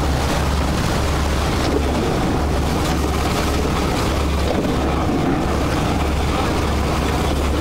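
Boat engine running steadily with a constant low hum, mixed with rushing wind and splashing sea water.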